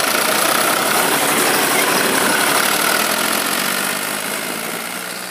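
Fiat 480 tractor's diesel engine running steadily while the tractor drives along, heard from on board, growing quieter near the end.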